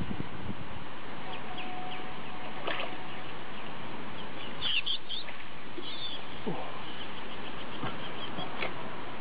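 Steady outdoor background noise with faint, high, short bird chirps scattered through it, a brief cluster of them about five seconds in.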